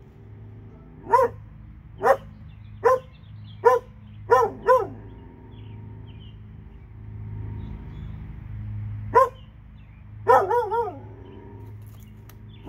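Dog barking in short, sharp single barks, about one a second for the first five seconds. After a pause of a few seconds come one more bark and then a quick run of three or four.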